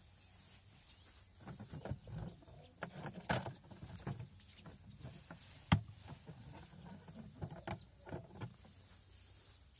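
A homemade wooden hay press being worked by hand: irregular knocks, clatter and hay rustling as the lever is raised and the hay is handled, with one sharp knock at about six seconds.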